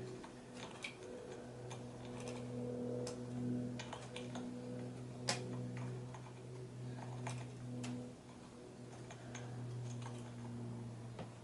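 Irregular small clicks as the spring in a retractable screen housing is wound by hand, turn after turn, to set its tension. A steady low hum runs underneath.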